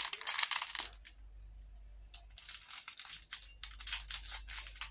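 Thin plastic packet crinkling and rustling as fingers work at opening it, in two spells with a pause of over a second between.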